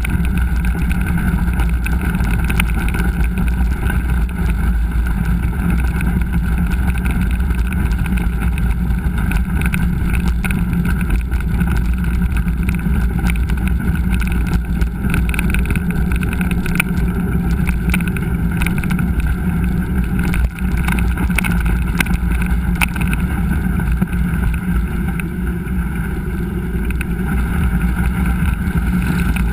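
Steady wind rush on a helmet- or bike-mounted action camera's microphone while a mountain bike is ridden over a trail, with small knocks and rattles throughout.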